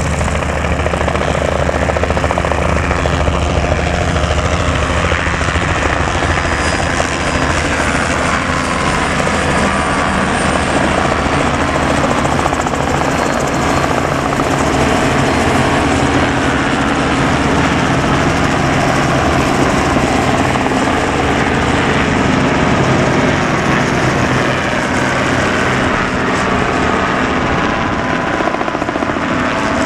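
A formation of light helicopters, Robinson R22s and R44s with a Bell 505, flying overhead. Their engines and rotors make a loud, continuous drone, and the pitch slides up and down as individual machines pass.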